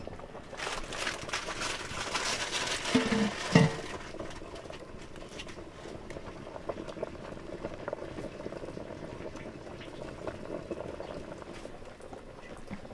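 A pot boiling hard on a wood-fired clay stove: dense bubbling and sputtering, loudest in the first few seconds. A short knock about three and a half seconds in is the loudest sound. After it the bubbling goes on more quietly and evenly, with small ticks.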